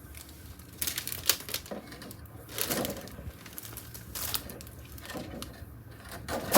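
Packaging rustling and crinkling in irregular bursts as it is handled, with a louder crackle near the end.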